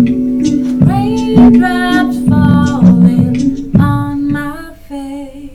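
Recorded song playing: a woman singing over instrumental backing with a steady held low note, the music fading out near the end.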